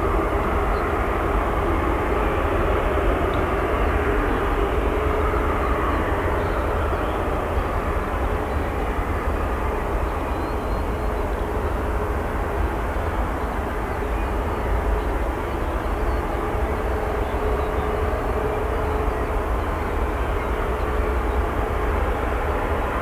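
Airbus A350-941 airliner's Rolls-Royce Trent XWB jet engines running as it rolls out along a wet runway after touchdown: a steady jet rumble with a faint constant hum.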